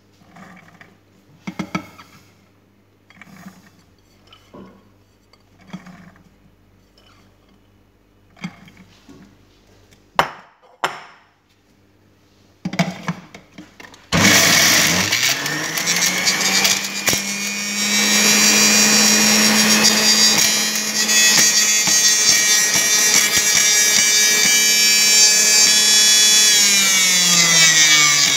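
A few clicks and knocks as a juicer lid is fitted, then, about halfway through, an electric centrifugal juicer switches on. Its motor whine rises quickly and then runs loudly with a grinding noise as pomegranate is pushed down the feed tube and shredded. The pitch falls slightly near the end.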